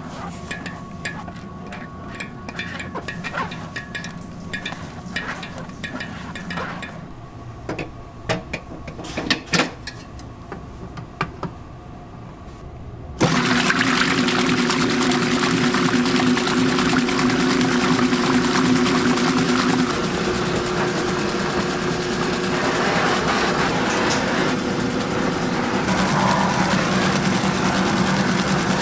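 A silicone spatula scrapes and taps as a yellow mixture is pushed through a fine-mesh strainer over a stainless steel bowl, with light clicks over a faint hum. About thirteen seconds in, a commercial planetary stand mixer's loud, steady running begins abruptly as its whisk beats the batter, and its tone changes twice in the second half.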